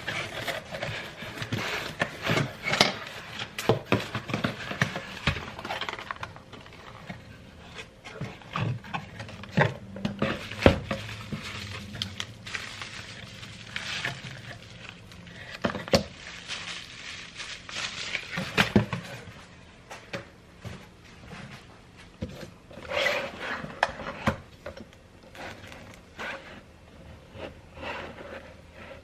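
Hand tools and small metal parts clinking and knocking irregularly, the work of taking off a car's steering wheel and fitting a quick-release hub.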